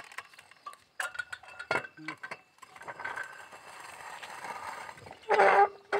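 Metal clinks, ticks and scraping from a steel borewell column pipe being turned at its threaded joint with a long pipe-wrench bar. A short loud call from a voice about five seconds in.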